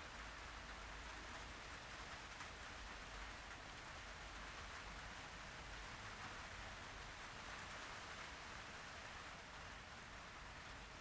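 Faint steady hiss with a low rumble underneath, unchanging throughout.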